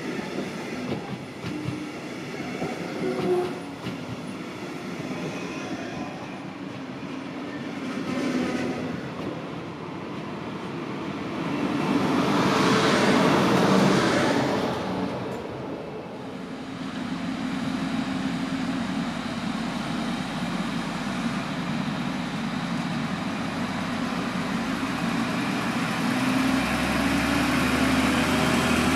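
Double-deck regional push-pull train rolling past, its wheels clacking over rail joints, loudest about halfway through as the end of the train goes by. In the second half, a steady low hum from a DB class 628 diesel railcar idling.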